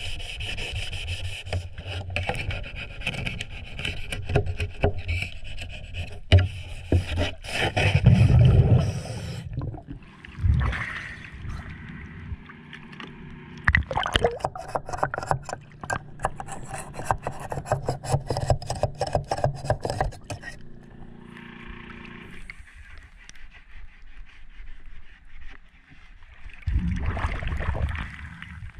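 Rapid, repeated scraping and sanding strokes on a boat's metal trim tab underwater, cleaning off the slag left by the old zinc anode. The strokes come in runs with short pauses, and there is a louder low rushing noise twice, about eight seconds in and near the end.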